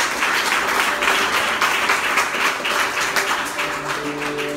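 Congregation applauding: many people clapping in a dense, steady patter.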